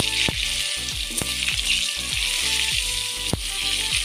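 Potato chunks sizzling steadily as they fry in hot oil in a deep iron kadai, with a few sharp clicks.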